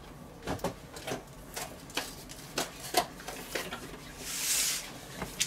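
Handling noise as a rolled bacon weave is unrolled across a wooden cutting board by hands in nitrile gloves: scattered sharp clicks and crackles, with a brief rustle near the end.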